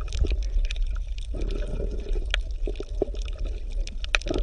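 Bubbling water: many small irregular pops over a steady low rumble.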